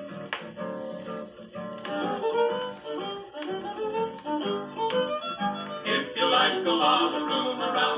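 Instrumental introduction of a 1940s western string-band song: a fiddle plays the melody over strummed acoustic guitar, the band growing fuller about six seconds in.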